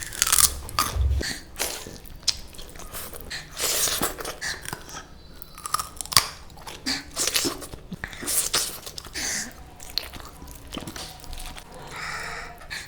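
A person biting and chewing food close to the microphone, with irregular crunchy bites and wet chewing.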